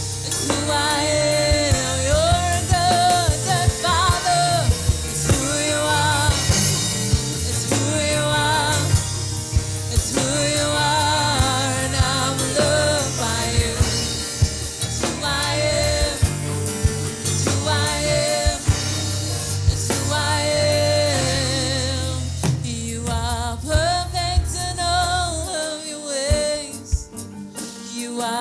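Christian worship music: singers over a band with a steady bass and drums. The bass drops out near the end, leaving the voices lighter.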